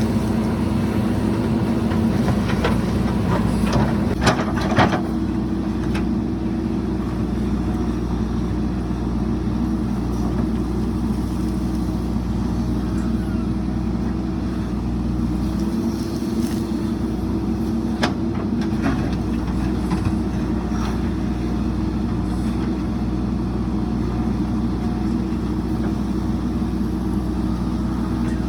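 JCB 3DX backhoe loader's diesel engine running steadily at work, with a few sharp knocks about four or five seconds in and again around eighteen seconds.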